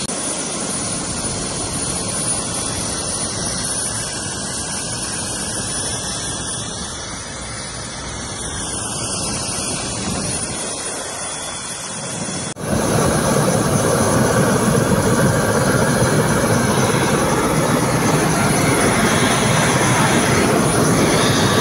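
Bell 407 helicopter's turbine engine and rotors running steadily, a constant rush of noise with a thin high whine. About twelve seconds in it jumps abruptly to louder, denser steady noise heard from inside the helicopter's cabin.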